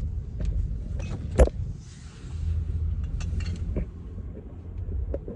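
Low rumble of a car on the move, heard from inside the cabin, with scattered clicks and creaks and one sharp knock about one and a half seconds in.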